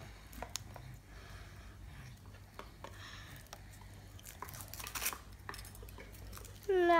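Small plastic parts of a Kinder Surprise toy train clicking and tapping as they are handled and fitted together, with a few sharper clicks about five seconds in. A child's high voice starts right at the end.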